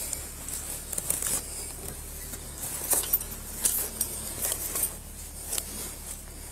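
Body-worn camera picking up handling noise as the wearer moves: irregular rustles and light clicks and clinks of clothing and gear, over a steady low hum.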